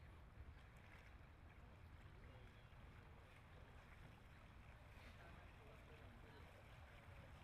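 Near silence: faint river ambience with a low rumble and soft water splashes from a kayak paddle dipping in forward strokes.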